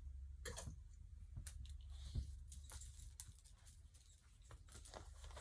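Faint rustling of clothing with light clicks of a belt buckle being adjusted, one sharper click about two seconds in, over a low steady hum.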